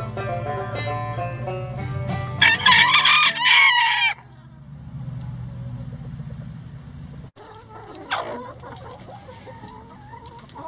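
Banjo music gives way to a rooster crowing loudly for about a second and a half, starting a little over two seconds in. Later come soft hen clucks.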